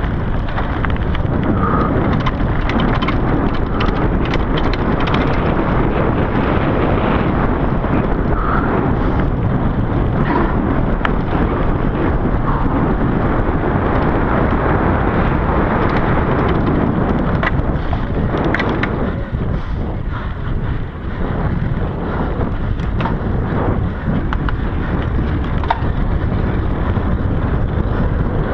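Wind rushing over the action-camera microphone of a mountain bike ridden fast, with the tyres rumbling over the trail and the bike rattling, plus many small clicks and knocks.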